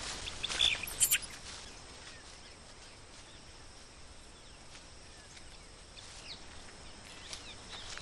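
Forest ambience: a faint steady hiss with a few short, high chirps about half a second to a second in, and a few more faint chirps in the second half.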